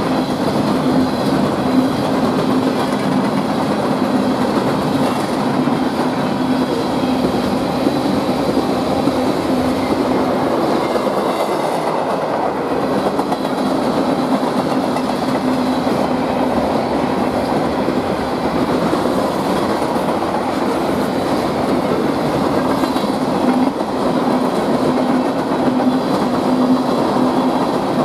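Freight train cars, steel gondolas and then tank cars, rolling past: steady noise of steel wheels on the rails, with a constant low hum underneath.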